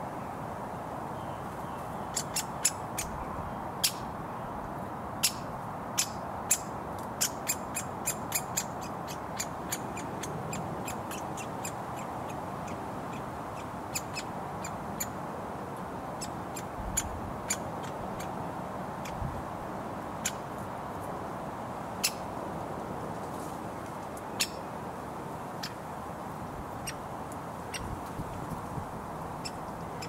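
Woodpecker giving short, sharp calls, many in quick succession over the first ten seconds, then more scattered, over a steady hum of road traffic.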